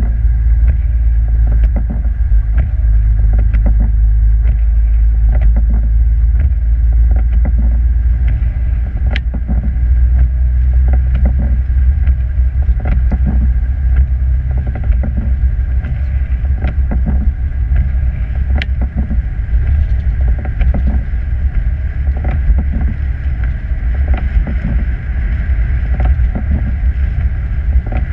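Vehicle driving on a snow-covered road in a blizzard, heard from inside: a loud, steady low rumble of engine and road noise, with irregular clicks and knocks throughout.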